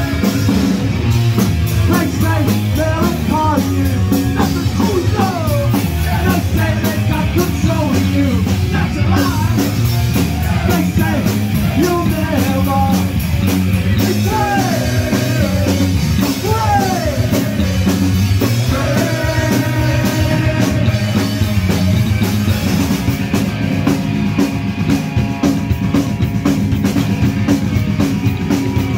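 Punk rock band playing live: drums, guitars and bass, with singing.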